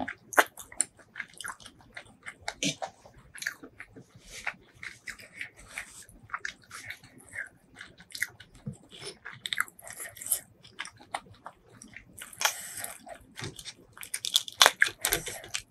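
Close-miked eating sounds: chewing food in a thick spicy sauce, with short, irregular wet clicks. Near the end comes a denser, louder crackling as the shell of a large prawn is cracked and pulled apart by hand.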